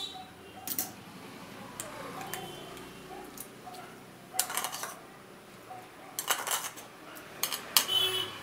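A spoon scraping and clinking against a plate as fried chopped vegetables are pushed off it into a glass bowl of beaten egg, in several short bursts.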